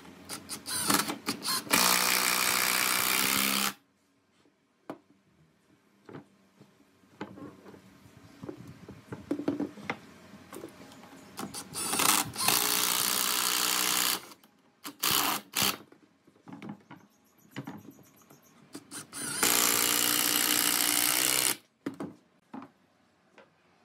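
Hitachi cordless impact driver driving long screws into pine chair-leg pieces, in three runs of about two seconds each. Short knocks and clatter come between the runs.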